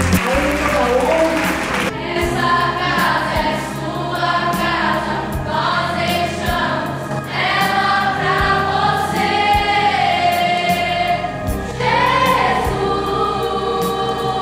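A church praise group and congregation singing a gospel worship song together over instrumental backing, the sung notes held long.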